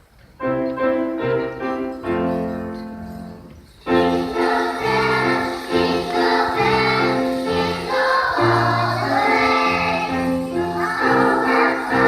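A Christmas choir song starting: the accompaniment comes in about half a second in, and voices join at full volume about four seconds in.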